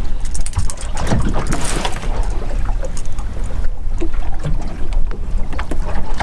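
Wind rumbling over the microphone in an open aluminium boat on choppy water, with scattered light knocks and clicks from handling gear and the fish in the hull.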